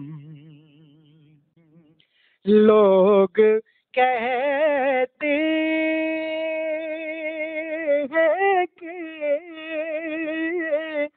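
A solo voice singing a naat, an Urdu devotional song in praise of the Prophet, with no instruments: a phrase fades out in the first second or so, a short pause follows, then a new phrase begins about two and a half seconds in, with a long note held with vibrato in the middle.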